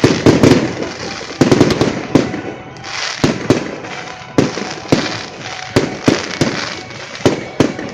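Aerial fireworks going off: a rapid, irregular series of sharp bangs and deeper booms, a cluster of several about a second and a half in, with crackling between the shots.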